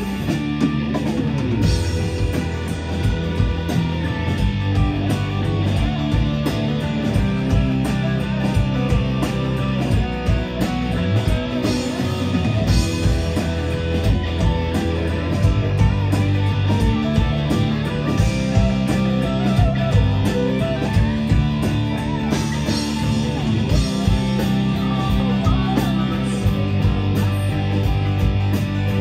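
Live rock band playing: distorted electric guitars, bass guitar and drum kit, steady and loud, in a largely instrumental passage of the song.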